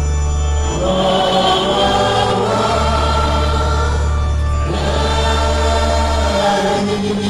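A choir sings a slow Yoruba hymn in harmony over held low bass notes that change about every two seconds.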